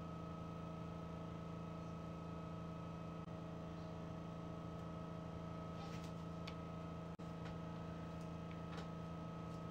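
Steady low hum of room tone with faint ticks and rustles of hair being handled, clustered from about six seconds in.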